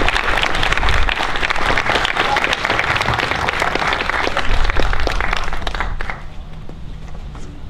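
Audience applauding, a dense patter of many hands clapping that drops away sharply about six seconds in.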